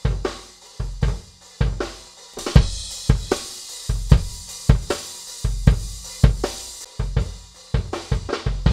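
A recorded drum kit playing back in a steady beat: kick drum, snare, hi-hat and crash cymbals, with the kick on every beat. The kick is being A/B'd between its poor raw recording and a heavily gated, compressed version that emphasises the slap and has extra bass body added.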